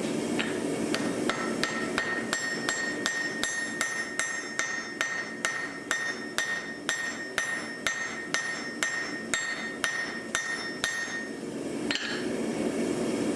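Blacksmith's hammer striking metal on an anvil in an even run of about three blows a second, each with a bright metallic ring, while forging a knife. A steady rushing noise is heard before the hammering starts and again after it stops.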